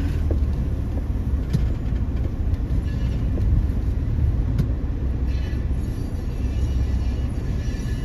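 Low, steady engine and drivetrain rumble of an off-road SUV heard from inside its cabin as it crawls over a hilltop, with a couple of faint clicks from something rattling.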